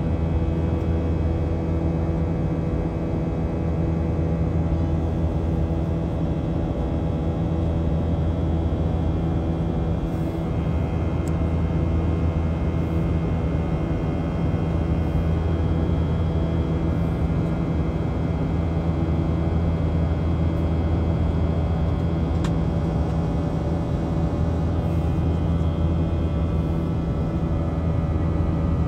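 Boeing 737-800 cabin noise in flight: the steady drone of its CFM56-7B turbofan engines and airflow, a constant low hum with a faint high whine on top.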